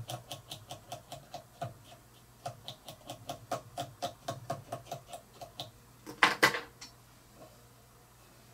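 A comb or dubbing brush stroked quickly and evenly through a spun dubbing loop of fur and flash on a fly-tying vise, making rapid ticks about five a second. The ticks stop about six seconds in and are followed by one brief, louder rustle.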